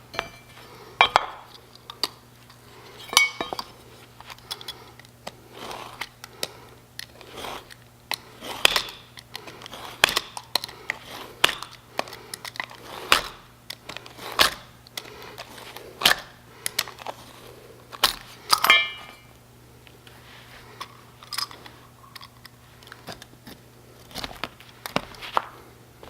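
Irregular metallic clicks, clinks and taps of a cutting tool being handled and its blade swapped, over a faint steady low hum.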